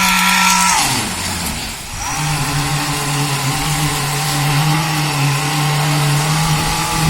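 A ready-mix concrete truck's engine running: its pitch falls about a second in, then after a brief dip it settles into a steady run with a higher whine above it.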